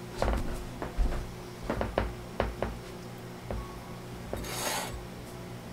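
Terracotta plant pot knocking and scraping against a stainless-steel sink several times. About four and a half seconds in comes a short splash as drained water runs out of the pot into the sink.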